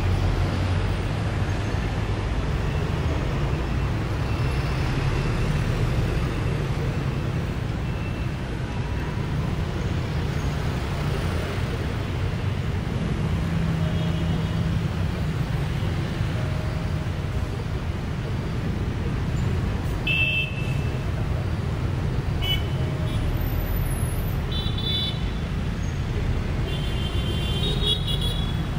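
Steady road traffic and a low rumble heard from the open top deck of a moving double-decker bus, with motorbikes and cars close alongside. Several short, high-pitched horn toots sound in the last third.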